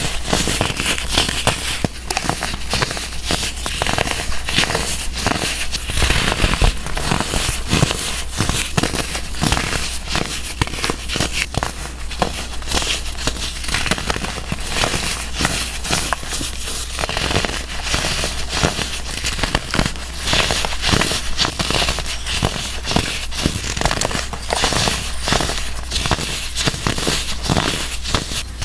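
Crunchy blocks of baking soda being crushed: a continuous run of dense, crumbling crackles and crunches.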